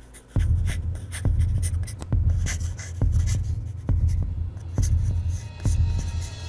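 Graphite pencil scratching across watercolour paper in short sketching strokes. Under it, a low, slow pulsing beat of background music, about one pulse a second, is the loudest sound.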